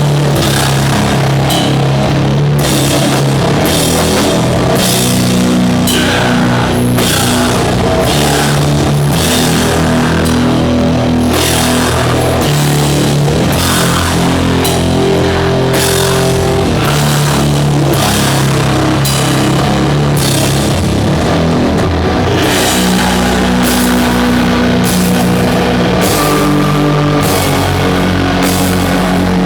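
Doom metal band playing live: heavily distorted guitars and bass hold slow, sustained low chords that change every few seconds, with cymbals struck about once a second.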